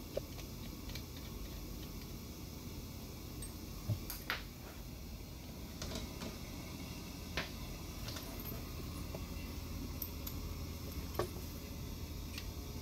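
A few sharp metallic clicks and taps from metal high-pressure hose fittings and a pressure gauge being handled, the loudest about four seconds in, over a steady low background hum.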